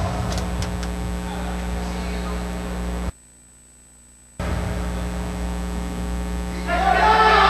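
Steady electrical mains hum on the recording, with a faint hiss above it. It cuts out for about a second around three seconds in, then returns. Voices come in near the end.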